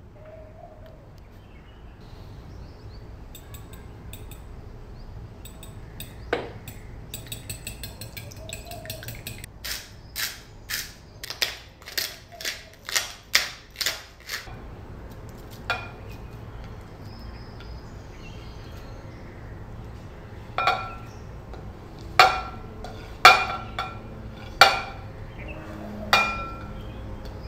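Kitchen work at a glass mixing bowl. First a fork beats eggs with quick light ticks. Then about a dozen sharp crunches come, roughly two a second, as a pepper mill is twisted over the bowl. Near the end several loud ringing clinks of dishware strike the glass bowl as shredded vegetables are tipped in from a plate.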